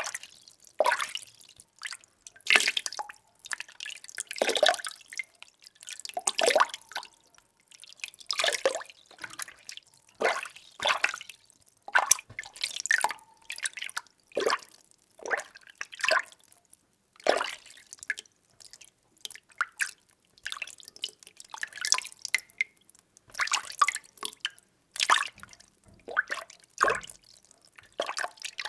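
Water being stirred by hand in a container: a steady run of short, irregular swishes and small splashes, roughly one stroke a second.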